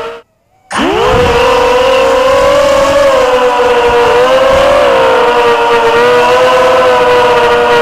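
FPV quadcopter's motors and propellers, recorded by its onboard camera: a steady high whine of several close tones. After a short gap of silence the pitch rises quickly as the motors spin up for takeoff, then wavers slightly as it flies.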